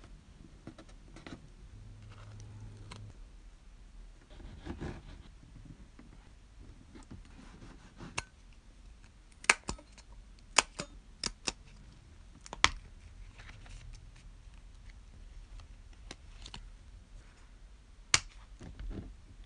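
Mini binder journal's rings snapping open and shut with sharp clicks as decorated paper cards are fitted onto them: a quick run of clicks about halfway through and one more near the end, over soft paper handling.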